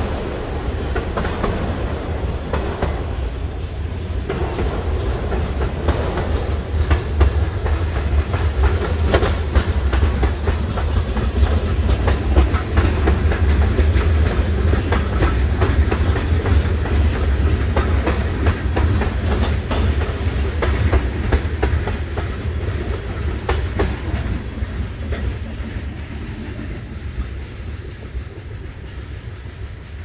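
Freight cars of a manifest train rolling past: a steady rumble with the clickety-clack of wheels over rail joints. It fades away over the last few seconds as the end of the train goes by.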